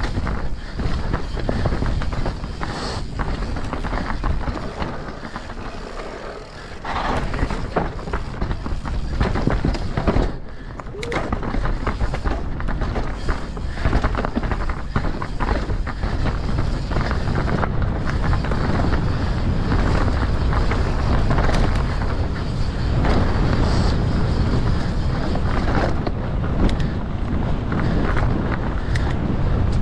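Wind rushing over the microphone and the rattle and knocking of a mountain bike ridden fast over rough trail, with many short clatters; it eases briefly about ten seconds in.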